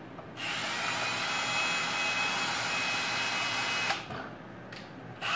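Cordless drill driving a drill winch, running steadily with a high whine as it winds in the crane's lifting cable. It starts about half a second in and stops about four seconds in.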